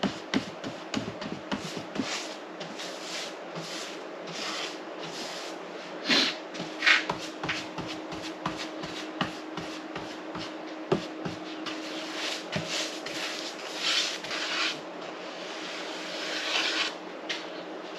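Paintbrush swishing back and forth over wooden trim boards, brushing on a coat of polyurethane: a run of short brushing strokes with light knocks in between. A steady low hum comes in about six seconds in.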